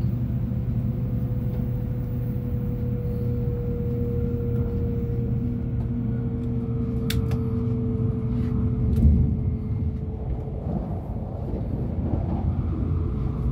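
Shinkansen train heard from inside the passenger cabin: a steady low running rumble with a thin whine that slowly falls in pitch and fades, as the train slows for a station stop. A couple of faint clicks come partway through.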